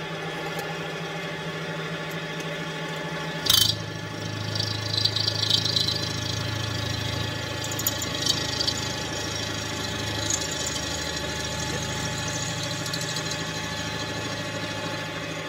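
Milling machine spindle running with a twist drill boring into a brazed-up cast-iron cylinder head, the metal cutting hard. A sharp click about three and a half seconds in, after which a lower drone joins the steady hum and scratchy cutting noise comes and goes.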